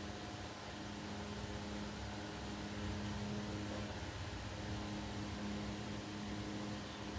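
Steady low hum from a running machine over a hiss of room noise, the hum dropping out briefly about four seconds in.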